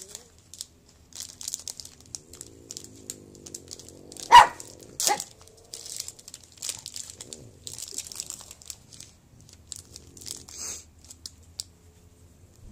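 A foil-lined snack-bar wrapper crinkling and tearing as it is opened, with short dog barks about four to five seconds in.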